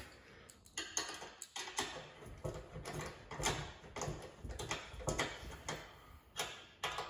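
Ratchet spanner clicking in repeated back-and-forth strokes, about two a second, tightening the bolts on a big GT wing's mounting uprights on a car's boot lid.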